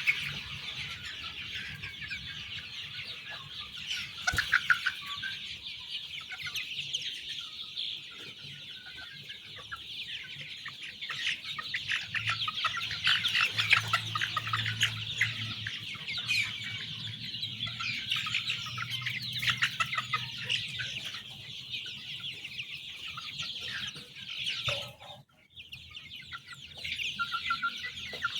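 A large flock of chicks peeping all at once, a dense, continuous chorus of high chirps, which drops out briefly near the end.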